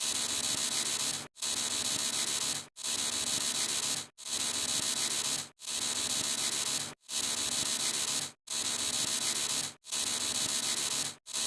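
A sound effect played over and over: a steady hissing buzz about a second and a third long, cut off by a short gap and started again, about eight times in a row.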